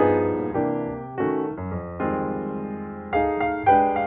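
Background piano music: a gentle melody of chords struck one after another, each fading before the next.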